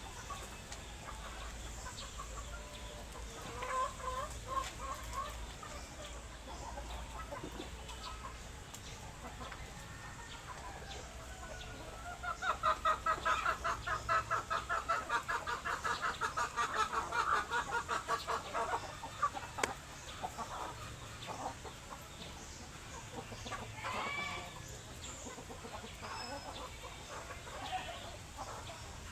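Chickens clucking, with a louder run of rapid clucks lasting several seconds midway through.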